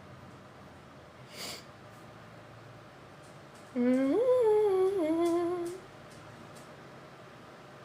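A woman humming for about two seconds, her pitch sliding up and then settling lower and level. A short soft hiss comes about a second and a half in.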